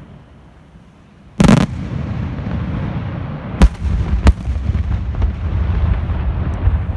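Aerial firework shells bursting: about a second and a half in, a loud shell burst, then a continuing rumble and crackle of further bursts, with two more sharp bangs near the middle.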